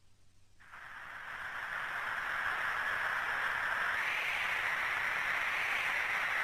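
A steady, wind-like hiss opening the karaoke backing track. It fades in about a second in and swells slightly midway, with no notes or beat yet.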